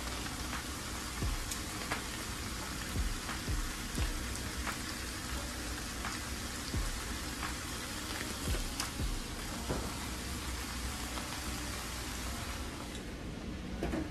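Chopped cabbage and bacon frying in vegetable oil in a pan: a steady sizzle with scattered crackles.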